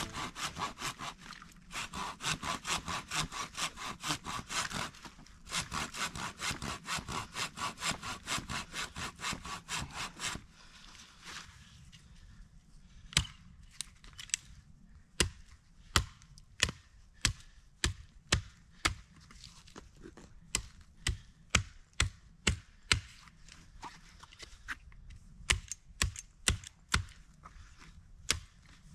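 Wood being sawn by hand in quick, even back-and-forth strokes, with a short pause about five seconds in. About ten seconds in the sawing stops, and a run of sharp knocks on wood follows, one or two a second, as wood is chopped.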